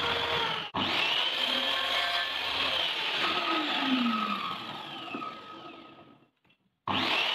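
Electric circular saw running at full speed with a steady high whine. From about halfway through the motor spins down with a falling pitch and fades out, then the full-speed saw noise comes back abruptly near the end.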